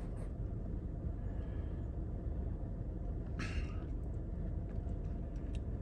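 Steady low rumble of a Hyundai car running, heard inside the cabin, with a brief rustle about three and a half seconds in.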